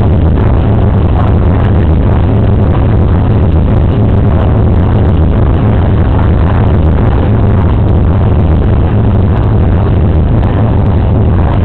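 Loud, steady crowd din in an indoor fight hall, so loud it overloads the microphone and comes out as a dense, heavy-bottomed rumble.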